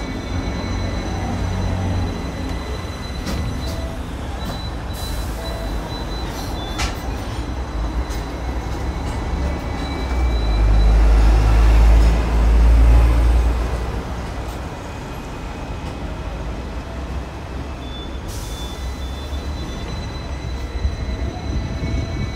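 Hong Kong double-decker electric tram running along its rails, a steady rumble and rattle with a few sharp clicks in the first seven seconds. The low rumble swells louder about ten seconds in and eases off again a few seconds later.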